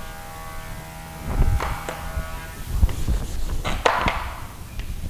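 Chalk scratching on a blackboard in short strokes as a word is written, the loudest strokes about a second and a half in and about four seconds in, with low thuds underneath.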